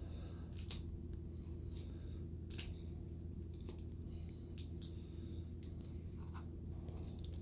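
Faint, scattered clicks and light crinkles of trading cards and their packaging being handled and sorted, over a steady low hum.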